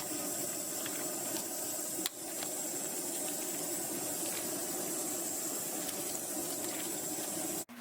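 A steady watery hiss of bubbling liquid, broken by a brief cut about two seconds in and stopping abruptly at the end.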